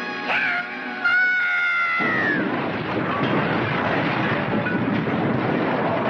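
Cartoon soundtrack: a quick pitched swoop, then a held note that slides down in pitch, giving way after about two seconds to a dense, steady rumbling noise.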